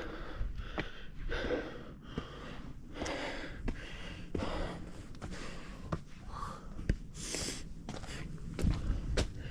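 A hiker breathing hard while scrambling up steep rock: a quick breath every second or less, with scattered sharp clicks of steps and hands on rock.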